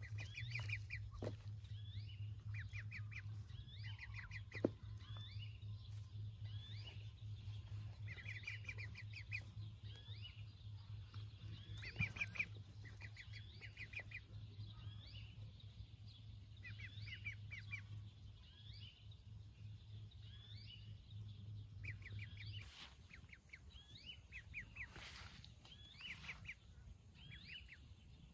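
Ducklings peeping in quick runs of short, high notes, over and over. A steady low hum runs beneath and stops about three-quarters of the way through, with a couple of sharp clicks along the way.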